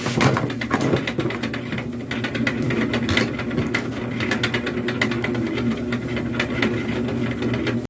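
A small motor running steadily with a low hum, with many irregular light clicks and rattles over it.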